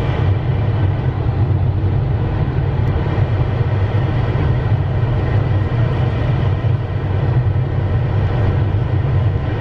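Steady flight-deck noise of a Dassault Falcon 8X business jet on final approach: an even, deep rumble with a fainter hiss above it, heard from inside the cockpit.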